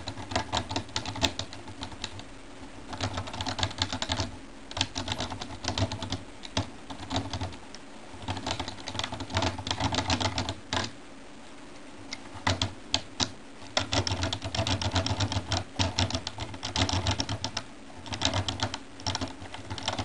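Rapid metallic clicking and rattling of a double-sided lock pick being raked and wiggled against the pins of a Peugeot car door lock, with a tension tool in the keyway. It comes in bursts with short pauses between them.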